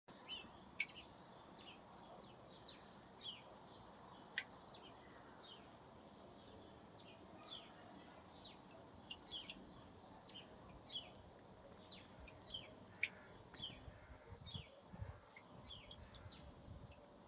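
Faint, irregular bird chirps, many short high notes, over a low steady hiss.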